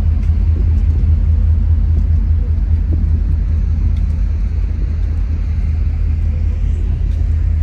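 Loud, steady low rumble on the open deck of a moving car ferry, with wind buffeting the phone's microphone.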